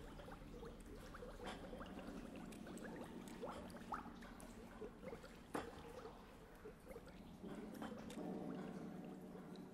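Quiet sewer-tunnel ambience: scattered water drips and faint trickling over a low, steady hum, with a few sharp ticks, the loudest a little past halfway.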